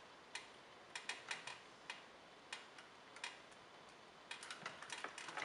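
Faint, scattered small clicks and taps: a GPS antenna's screw-on coax connector and the plastic wiring plugs being handled and fitted behind a car stereo head unit.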